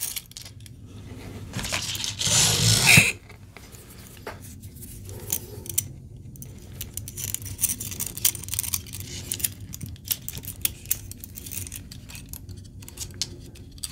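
Handling noise of thin stainless steel cable being threaded through 3D-printed plastic arm parts: scattered small clicks, taps and scrapes of plastic and wire, with a louder stretch of rustling noise about two seconds in.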